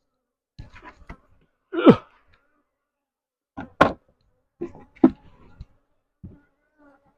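Wooden beehive boxes and parts knocking and thudding as they are handled and set down, a few separate hits. The loudest is a short sound falling in pitch about two seconds in.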